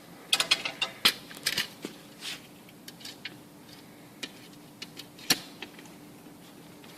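Handling noise from tools and small metal parts: scattered clicks and rattles, busiest in the first couple of seconds, with one sharp click a little past five seconds.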